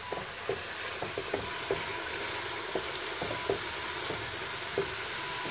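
Coconut milk, cooked down until its oil has separated, sizzling and frying in a metal pan, while a wooden spatula scrapes and taps the pan about twice a second as it is stirred. This is the stage where latik, the toasted coconut curds, starts to form.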